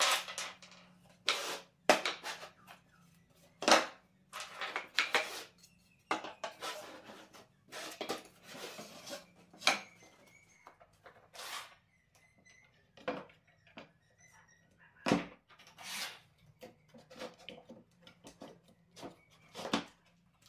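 Wooden router-jig arms being handled and laid on a workbench: irregular wooden knocks and clatters, with short sliding rubs as the strips are arranged and fitted together.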